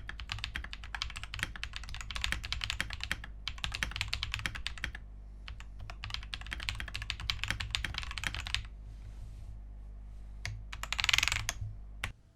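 Fast typing on an Akko Monsgeek MG75 mechanical keyboard: a dense run of keystrokes that thins to scattered key presses about nine seconds in. Near the end comes a brief, louder hiss, and then the sound cuts off.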